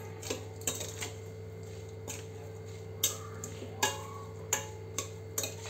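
A spoon clinking and scraping against a stainless steel bowl while stirring chunky karonda and green chilli pickle. The clicks are irregular, coming every half second to a second.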